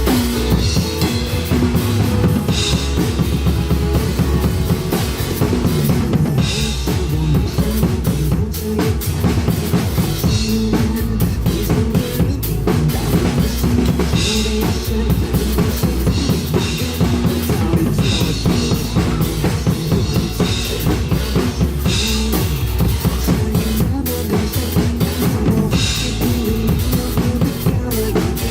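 Drum kit played through a steady groove of kick and snare over a backing track with a bass line, with a bright crash accent about every four seconds.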